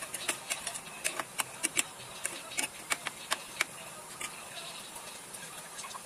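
A metal spatula clacks and scrapes against a nonstick frying pan as chicken feet in adobo sauce are stirred: about fifteen sharp, uneven taps over the first three and a half seconds. After that, the pan simmers with a steady faint hiss.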